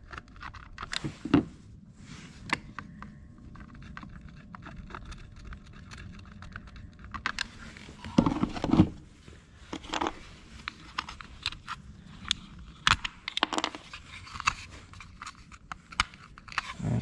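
Hard plastic switch panel being handled and worked on by hand: irregular small clicks, taps and scrapes, with a few louder knocks about a second in and around eight seconds in.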